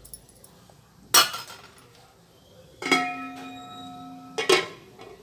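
Aluminium lid being put on an aluminium kadai of simmering curry: a sharp clink about a second in, then a metallic clang about three seconds in as the lid meets the pan. The lid rings with a steady tone for about a second and a half and ends in a second clank as it settles.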